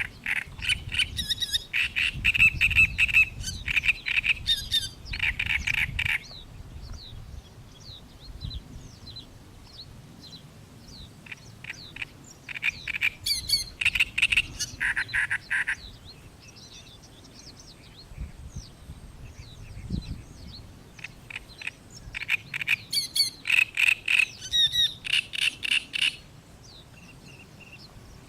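Great reed warbler singing: three bouts of its song, each several seconds long, made of rapidly repeated grating notes. Fainter short high chirps come between the bouts.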